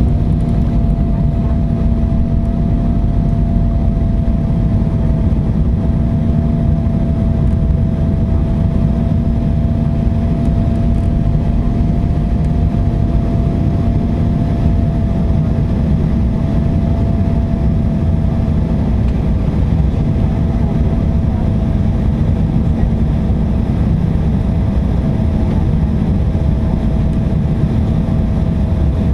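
Inside the cabin of a Boeing jet airliner: the steady rumble of the jet engines and airflow, with a thin steady whine riding above the low roar, unchanging throughout.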